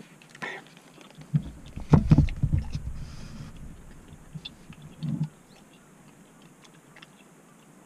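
Tabletop handling knocks: a cup-noodle bowl and chopsticks set down on a small table, with a cluster of thuds about two seconds in, then a ceramic mug bumped and picked up about five seconds in.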